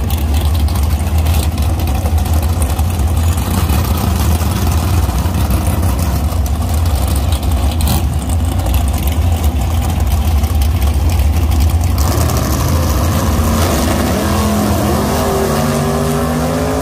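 A motor vehicle's engine running with a loud, steady low rumble; in the last few seconds an engine note rises as it accelerates.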